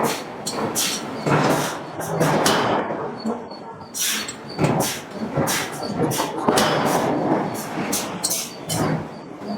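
A hydraulic forging hammer striking a steel billet in repeated blows, roughly two a second, each with a short metallic ring.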